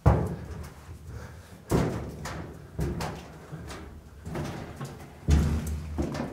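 Footsteps clambering over toppled school lockers: a series of hollow thuds and knocks as feet land on the locker tops, one every second or so, the loudest right at the start and again about five seconds in.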